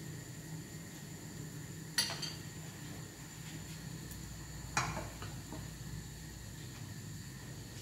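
Two sharp clinks of cookware, a pan and utensils knocked together, almost three seconds apart, each with a short ring, over a faint steady background hum.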